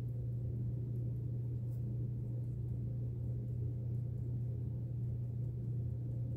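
Steady low hum, with faint scratchy ticks of a gel pen making short strokes on paper.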